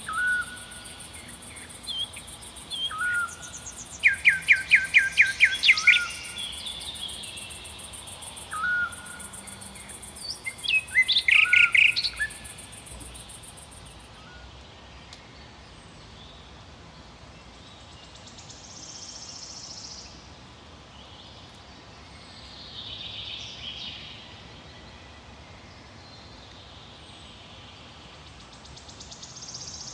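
Songbirds calling and singing: short rising whistled notes and two fast rattling trills in the first dozen seconds, over a high continuous insect buzz that stops about halfway. After that only soft swells of forest noise remain.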